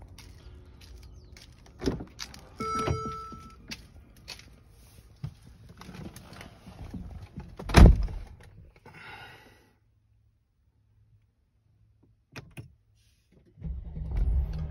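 A car door opens with a click and a short electronic chime, and the driver's door then shuts with a heavy thunk about eight seconds in, followed by a quiet cabin. Near the end the Mercedes GLS 450's 3.0-litre twin-turbo V6 starts with a low rumble.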